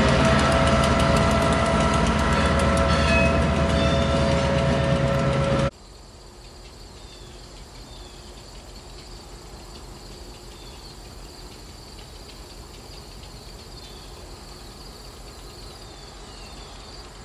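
A rail train rolling past with a heavy rumble and steady squealing metal tones. The sound cuts off abruptly about six seconds in. What follows is much quieter: a faint low hum from the SW1001 switcher under insects chirping over and over.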